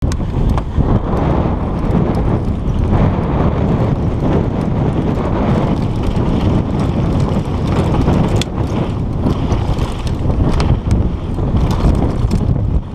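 Wind buffeting a GoPro's microphone while a mountain bike rolls along a rough dirt trail, a steady low rumble with scattered clicks and rattles from the bike over the bumps.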